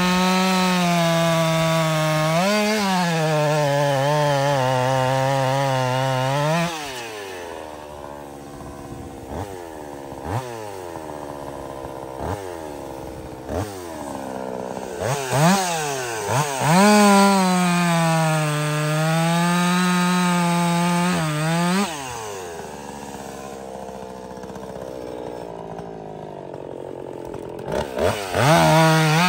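Woods-ported Jonsered 2156 two-stroke chainsaw cutting through cherry wood, running at high revs under load. About seven seconds in it drops to idle, with a few quick blips of the throttle. It revs back up for a second cut midway, idles again, and revs up once more near the end.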